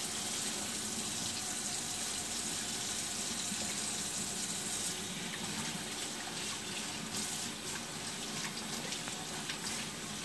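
Kitchen faucet running into a stainless steel sink, the stream splashing over hands being rubbed and rinsed under it.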